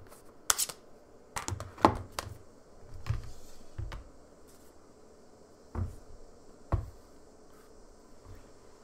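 Objects being handled and set down on a desk: a series of sharp clicks and knocks. The loudest come in a quick cluster about two seconds in, and two single knocks follow near six and seven seconds.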